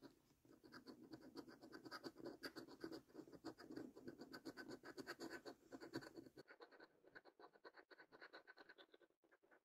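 Coin edge scraping the latex coating off a paper scratch card in quick, repeated strokes. The scratching gets lighter about six seconds in and tails off in short scrapes near the end.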